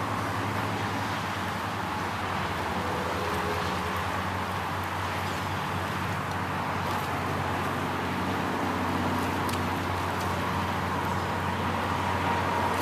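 A steady low mechanical hum over an even background noise, with no distinct events.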